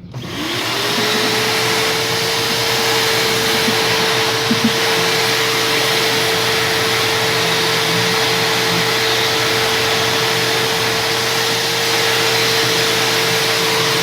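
Small electric motor with a rushing airflow, of the kind in a blower, heat gun or vacuum, switched on. It spins up within about half a second, then runs loud and steady at one pitch.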